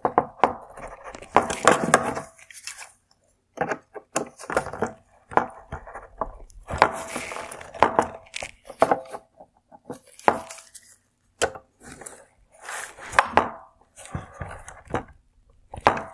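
Plastic clips on a 2017 Hyundai Tucson xenon headlight's projector being pried loose with a screwdriver: irregular clusters of clicks, knocks and short scrapes of tool on plastic, with brief pauses between them.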